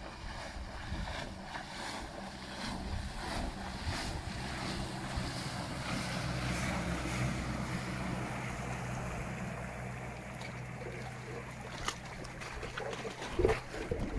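Small boat running past under a converted electric outboard (brushless outrunner motor on an old Crescent 5 hp leg): a low steady hum with the rush of hull and wake through the water, growing louder in the middle as it passes close. Wind buffets the microphone throughout, and there is a short knock near the end.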